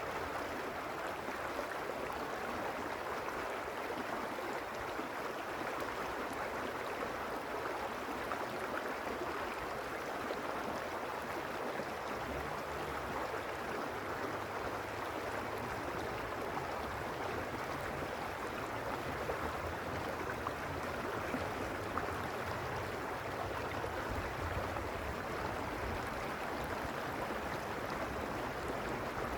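Mountain stream running over stones: a steady rush of flowing water with no breaks.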